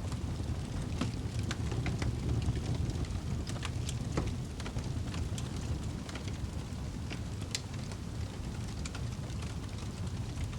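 Fire burning in a fireplace: a steady low rumble of flames with irregular crackles and pops, several a second.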